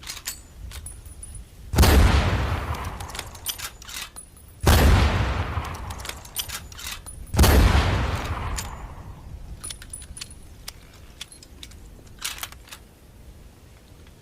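Springfield rifle firing three shots about three seconds apart, each a sharp crack with a long echoing tail. Metallic clicking and rattling comes between and after the shots.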